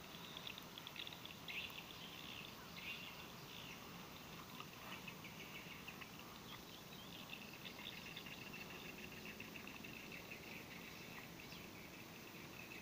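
Faint outdoor ambience of insects chirring, with a steadier pulsing chirr settling in about halfway through.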